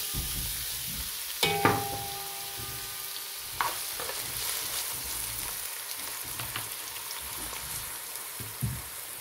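Chopped onions frying in hot oil in a pot: a steady sizzle. A sharp knock about a second and a half in rings on for about two seconds, and a second knock comes near four seconds.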